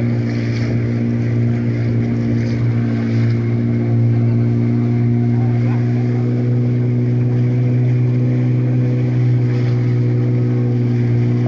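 Outboard motor of an inflatable rescue boat running at a steady speed under way on the river, a constant drone.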